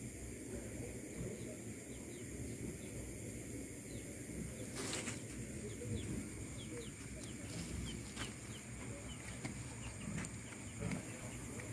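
A steady high-pitched chorus of night insects over low rustling and handling noise, with a brief crackle about five seconds in.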